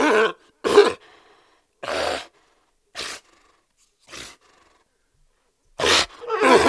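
Sea lion barking: a string of short, rough barks about once a second, dropping off in the middle, then two loud barks close together near the end.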